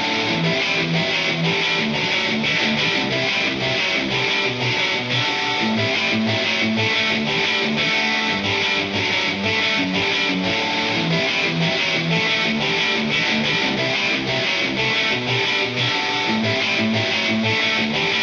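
Background music: an electric guitar track with distortion over a steady beat.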